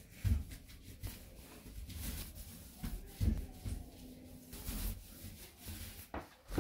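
Paint roller rubbing over a door as it spreads paint, with a few dull low thumps at irregular moments.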